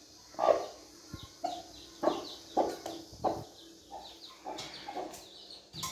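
Broody hen clucking, a string of short notes about twice a second.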